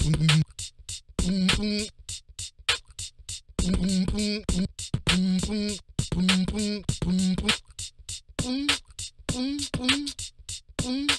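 Sampled beatbox sounds from the Mouthin' Off beatbox plugin playing a looped pattern: a steady run of short mouth clicks and hi-hat-like hits, a few a second, with short pitched vocal effect notes between them. The notes step up in pitch toward the end as the effect presets change.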